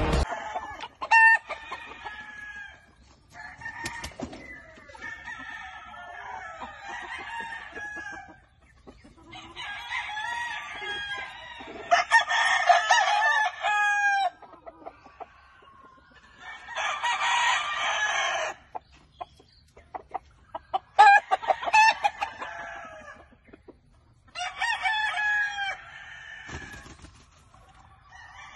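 Gamecock roosters crowing again and again, about six crows with short gaps between them, some with clucking mixed in.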